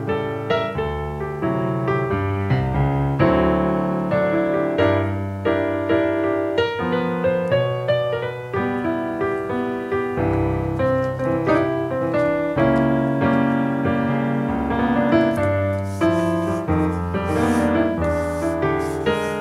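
Background solo piano music. Near the end, faint rubbing as a paper pattern is pressed and smoothed onto a wooden board by hand.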